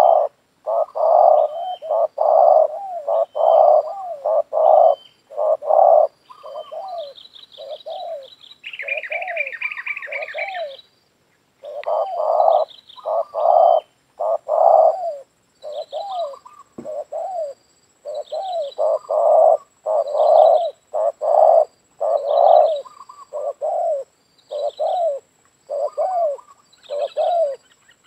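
Spotted doves cooing: repeated short coo phrases with brief pauses. Thin high chirps from small birds run through it, with a quick trill about nine seconds in.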